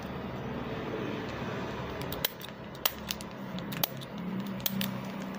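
Hands working a small plastic packet of cowrie shells and gomati chakras closed with a safety pin: light handling noise and a scattering of sharp small clicks in the second half, over a low steady hum.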